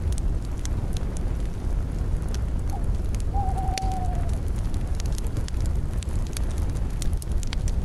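Campfire crackling: irregular sharp pops over a steady low rumble of burning wood. About three and a half seconds in, a single whistled note sounds, falling slightly in pitch.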